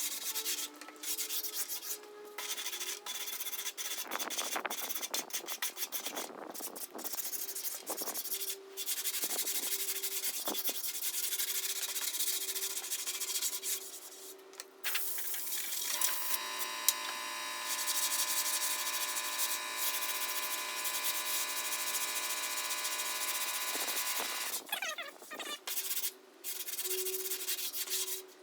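Sandpaper on a sanding block rubbing over cured body filler on a steel bumper in repeated strokes with short pauses. From about halfway, a steady hum of several pitches runs under the sanding for several seconds.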